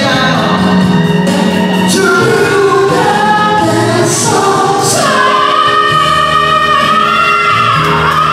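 Voices singing a pop ballad with musical accompaniment, holding one long high note from about five seconds in.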